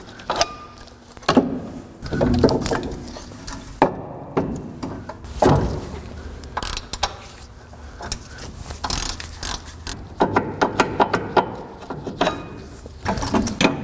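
Hand ratchet clicking in quick runs as the brake caliper's 3/8 Allen-head bolts are backed out, with knocks and clanks of metal parts and tools being handled.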